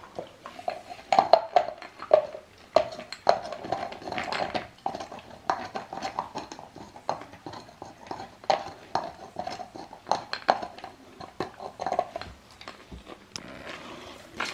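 Young boxer dog gnawing a hard chew bone: irregular clicking and scraping of teeth on the bone, thinning out over the last couple of seconds.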